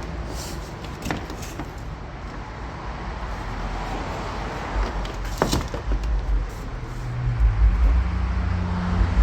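Steady low vehicle-like rumble with a couple of sharp clicks, the rumble swelling louder with a low hum near the end, as of a passing vehicle.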